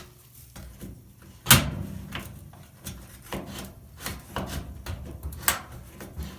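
A knife prying at a dryer's sheet-metal kick panel to release its spring catches: scraping and rattling with several sharp knocks, the loudest about a second and a half in.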